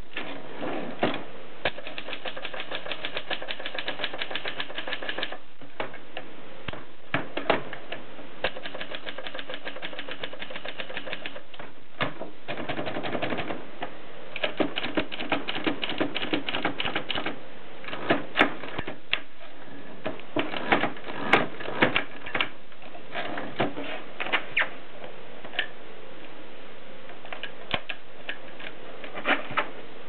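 Contessa Bicolor portable manual typewriter being typed on: quick runs of sharp keystroke clacks from the type bars striking the platen, broken by a few short pauses.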